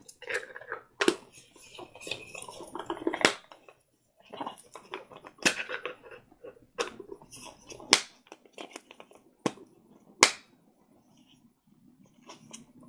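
Plastic surprise eggs and a small toy being handled: a string of sharp, irregular plastic clicks and knocks with handling noise between, quieter near the end.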